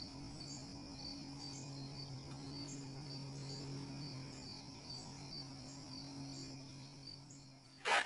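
Crickets chirping in a steady, even rhythm over a low, constant hum. A single sharp click near the end is the loudest sound.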